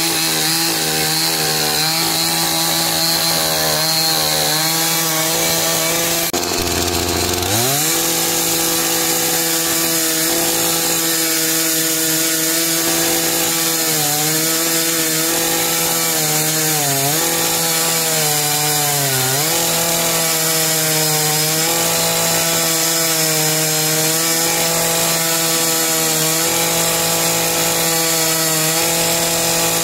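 KisanKraft KK-CSP-5720 two-stroke petrol chainsaw running at high revs, cutting through a log. About six seconds in the engine note drops low and climbs back up, and it sags briefly a few more times as the chain bites under load.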